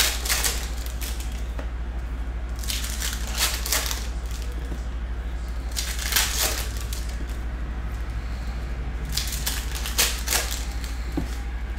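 Foil wrappers of trading-card packs being torn open and crinkled by hand, in about four short bursts a few seconds apart, over a steady low hum.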